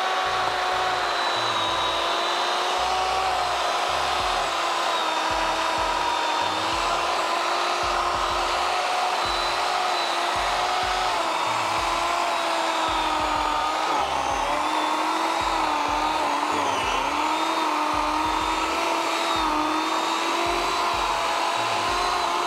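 Craftsman 14-inch 8-amp corded electric chainsaw running under load as it cuts through a 10-inch palm tree log: a steady motor whine whose pitch sags slightly at moments as the chain bites into the wood.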